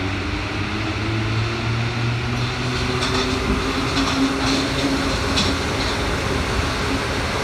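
MP73 rubber-tyred metro train running, heard from aboard: steady running noise with a low hum that gives way to a higher steady whine about two and a half seconds in, and a few short high-pitched bursts near the middle.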